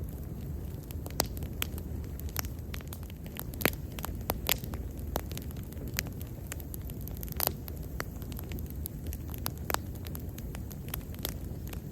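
Wood bonfire burning: a steady low rumble of flames with irregular sharp crackles and pops, the loudest pops about a third of the way in and again past halfway.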